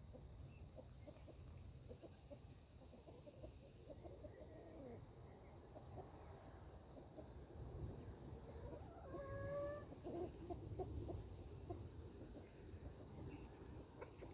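Chickens clucking faintly, with one drawn-out pitched call about nine seconds in.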